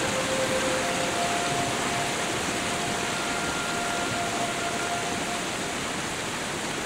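Steady rush of a small waterfall and rocky stream, with a few faint held tones over it.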